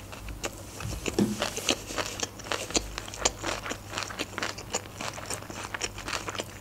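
A person chewing a mouthful of sushi roll: an irregular run of small wet mouth clicks, several a second.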